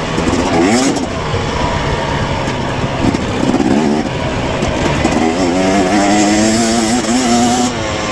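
KTM 250 dirt bike engine under racing throttle, revving up and down as the rider works the throttle. It rises sharply twice, then holds a fairly steady pitch for a couple of seconds before dropping off near the end.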